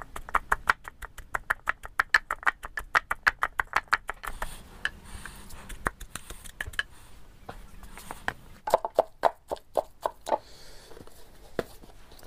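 Wooden pestle pounding in a mortar to crush a chutney: a quick, even run of sharp knocks, about eight or nine a second for some four seconds, then slower, scattered strokes.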